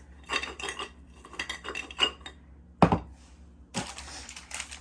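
Cookies clattering into a cookie jar in two quick runs of clicks and clinks, then one heavier knock about three seconds in. Plastic wrapper crinkling follows near the end.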